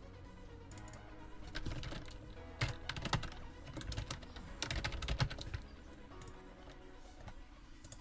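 Computer keyboard typing: quick runs of keystrokes from about a second and a half in until five and a half seconds in, over quiet background music.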